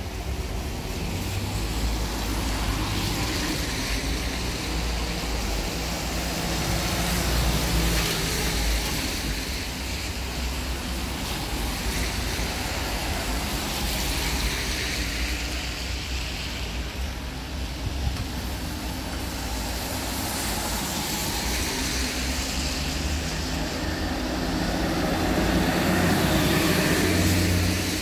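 Road traffic on wet tarmac: car tyres hissing on the rain-soaked road over a steady low rumble, the hiss swelling several times as vehicles pass, loudest near the end.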